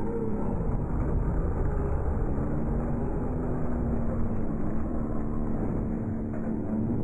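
Film sound of a highway crash fire: a dense, steady low rumble of burning wreckage, with a semi truck's engine droning as it comes through the flames. A steady low drone sets in about two seconds in.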